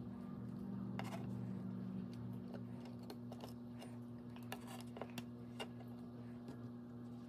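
Faint, sharp clicks and ticks from hands handling a small tool and metal hardware, clustered in the middle of the stretch, over a steady low hum.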